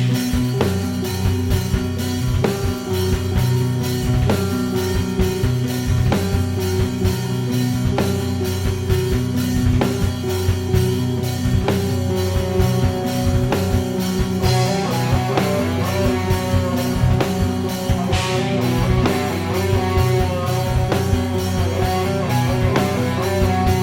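Heavy metal band playing an instrumental passage: distorted rhythm guitars and bass hold chords under a steady drum-kit beat, and a higher lead guitar line joins partway through.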